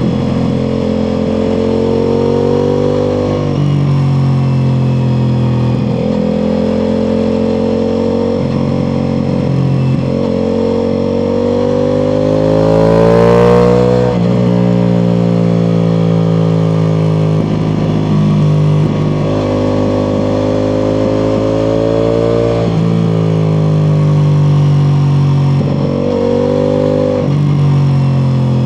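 Ducati Multistrada V4 Pikes Peak's V4 engine through an Akrapovič exhaust, accelerating and shifting through the gears. The pitch climbs and drops back at each shift, with one long pull to a high peak about halfway through before the revs fall away.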